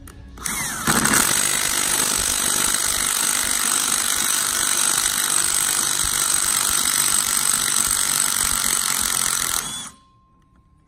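Impact wrench driving the centre stud of a power steering pulley puller, hammering steadily to pull the pulley off a mechanical vacuum pump shaft. It spins up about half a second in, runs for about nine seconds and stops suddenly near the end.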